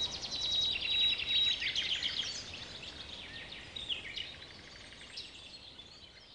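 Small birds chirping and twittering, a mix of quick trills and short high calls over a faint hiss, fading out gradually.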